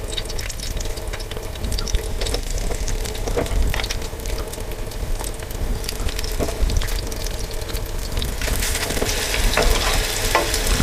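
Chicken-and-buckwheat fritter batter sizzling in hot oil in a frying pan, with metal spoons tapping and scraping against the pan as more spoonfuls go in. The sizzle grows brighter near the end.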